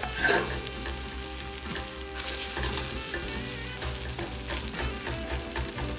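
Fried rice sizzling in a stainless steel pot over a gas flame while a spatula stirs and scrapes through it against the pot.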